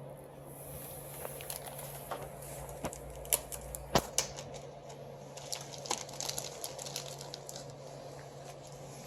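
Irregular small clicks and taps of copier fuser-unit parts being handled during repair, with a sharper knock about four seconds in, over a steady low hum.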